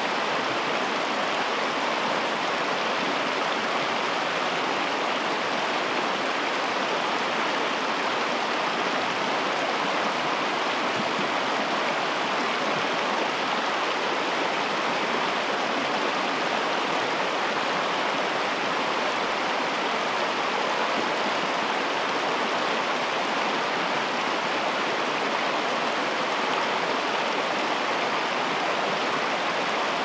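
Mountain river rushing steadily, a constant even sound of flowing water.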